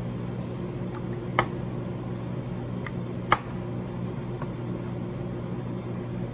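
A handful of short, sharp clicks from metal fish-bone tweezers as pin bones are pulled from a raw sea bream fillet, over a steady low hum.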